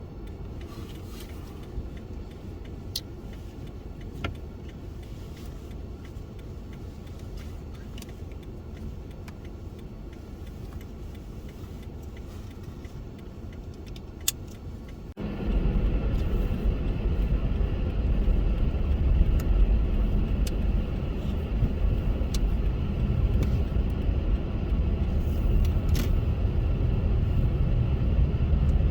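Car driving, with a steady low rumble of road noise and a few light ticks and rattles. About halfway through, the rumble abruptly becomes much louder and fuller and stays that way.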